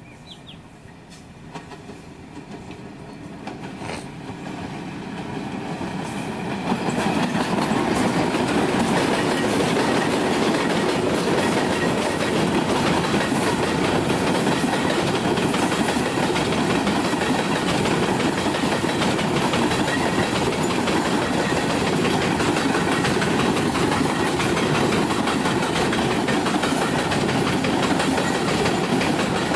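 Freight train hauled by two diesel locomotives approaching and growing louder over the first several seconds. A long line of hopper wagons then passes close by with a steady rumble and clatter of wheels on the rails.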